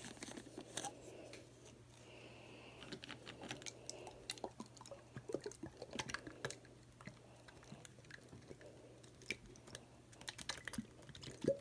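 Faint, scattered sticky clicks and squelches as orange slime is squeezed and shaken out of a plastic toy bottle.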